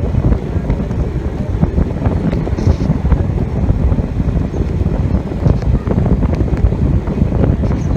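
Heavy wind buffeting the microphone on board a moving passenger train, over the steady rumble of the running coaches, with scattered faint clicks.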